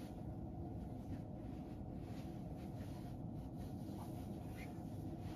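Steady low hum of room noise, with a few faint, brief scratches.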